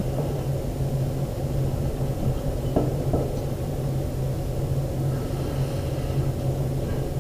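A steady low hum, with two faint taps about three seconds in.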